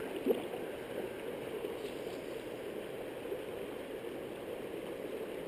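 Shallow creek water flowing steadily over rocks, a constant low rushing burble. One brief, sharper sound comes just after the start.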